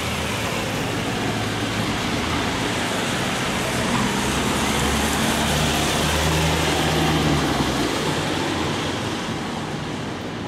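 Road traffic with a van driving past close by: engine and tyre noise that builds to a peak a little past the middle, then fades as it moves off.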